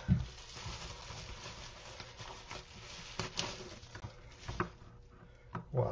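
Bubble-wrap bag crinkling and rustling as a resin model part is worked out of it, with a knock at the start and scattered light clicks. The rustling thins out about five seconds in.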